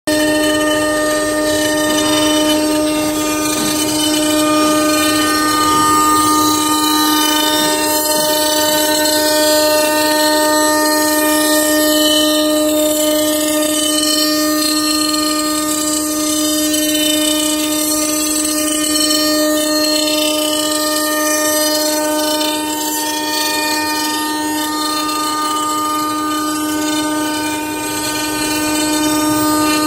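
ATC spindle of a 1325 CNC router running with a steady whine, its bit carving a wooden log that turns on the rotary axis.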